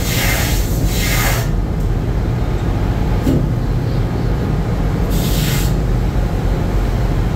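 Steady, loud low drone of a fishing trawler's deck machinery while the net is hauled in, with two short bursts of hissing, one in the first second and a half and another about five seconds in.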